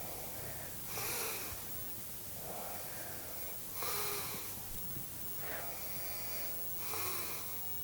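A man snoring in his sleep: three strong snores about three seconds apart, with softer breaths between them.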